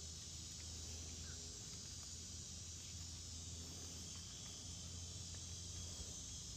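Faint, steady high-pitched chirring of insects, with a low steady hum beneath it.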